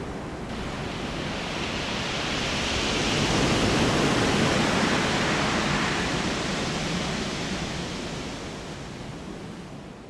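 Sea surf washing over a sand beach: a rush of water that swells to its loudest about four seconds in, then fades away near the end.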